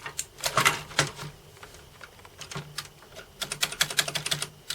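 Plastic clicks and taps as a new keycap is worked and pushed onto a Commodore 64 key stem. A few separate clicks come early, and a quicker run of clicks follows over the last second or so.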